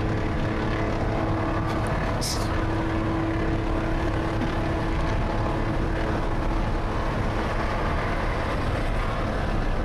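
Detroit Diesel 12V-71 two-stroke V12 running loaded at a steady freeway cruise through dual 6-inch straight stacks, a loud, even drone heard from inside a car following the truck, over road noise.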